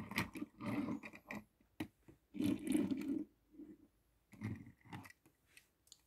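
Die-cast toy cars handled on a wooden tabletop: a string of irregular scrapes, clicks and knocks as they are moved, turned round and picked up.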